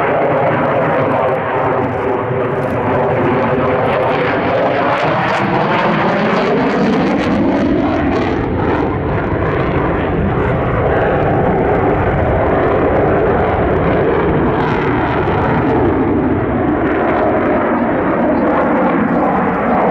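Loud, continuous jet noise from a Belgian Air Force F-16 Fighting Falcon's Pratt & Whitney F100 turbofan during display manoeuvres. Between about 2 and 8 seconds in, a sweeping whoosh falls in pitch, then the roar holds steady.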